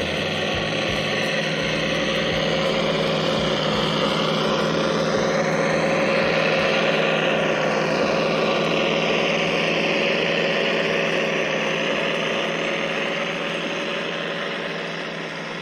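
Scale RC crawler truck driving. The onboard sound module plays a simulated truck engine note through its small speakers, steady in pitch, while the brushed electric drive motor and gears whine higher, the whine gliding up and down with speed. It fades a little near the end.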